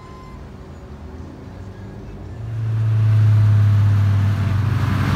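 Car engine running with road noise. It gets much louder about two and a half seconds in, with a steady low hum, and the noise of the road builds toward the end.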